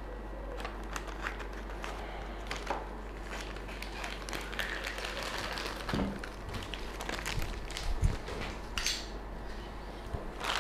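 Clear plastic bag crinkling and rustling as it is cut open with scissors and pulled back by hand, with many small irregular crackles and a couple of dull knocks about six and eight seconds in.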